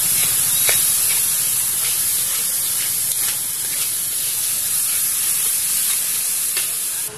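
Oil and spice masala sizzling hard in a hot steel kadai, a loud steady hiss, with light clicks of a metal spatula scraping the pan and oil spattering as it is stirred. The sizzle drops off sharply near the end.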